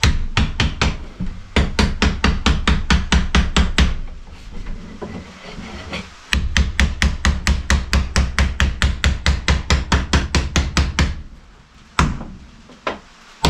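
Quick runs of taps on a wooden block held against a new wooden sill, about four a second, driving the tight-fitting sill down into its rabbet. Two long runs with a short pause between, then two single taps near the end.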